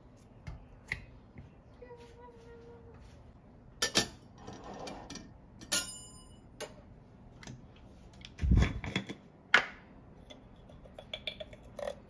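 Kitchen handling sounds: scattered knocks and clinks of dishes, glass and metal on a counter. One metallic clink rings briefly about six seconds in, a heavier thump comes just past eight seconds, and quick light clinks near the end come as the metal Vietnamese phin coffee filter is taken apart.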